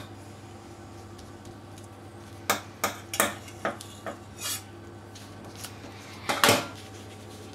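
Metal fork tines clicking against a stainless-steel worktop as they press the edges of a puff-pastry turnover shut: a run of short, sharp clicks, then a louder clatter near the end.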